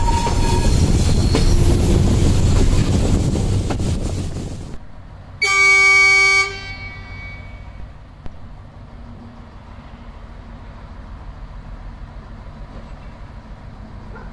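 Loud rumbling wheel and track noise of a train running at speed, heard from the moving train with a faint wheel squeal, cutting off sharply. A railcar's horn then sounds one blast of about a second, followed by the quiet low rumble of the diesel railcar approaching.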